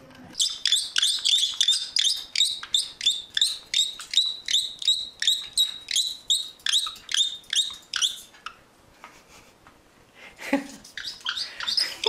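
White-bellied caique calling: a rapid, regular series of shrill, down-slurred calls, about three a second, lasting about eight seconds.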